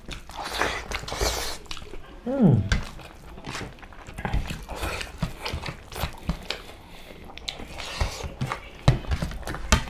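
Close-up eating sounds: two people chewing mouthfuls of rice and curry eaten by hand, with many small mouth clicks and fingers working food on plates. One short falling hum of a voice about two and a half seconds in.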